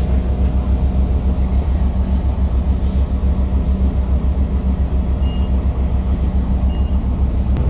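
Cummins ISL9 diesel engine of a New Flyer D40LFR transit bus droning steadily under way, with low road rumble, heard from inside the passenger cabin.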